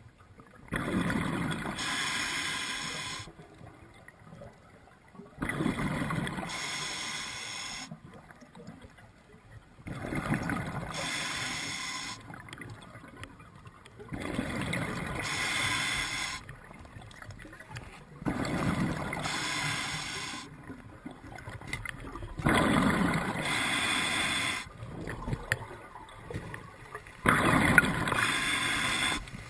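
A scuba diver breathing underwater through a regulator: hissing and bubbling breaths in an even rhythm, about one every four seconds, seven in all, with short quiet pauses between them.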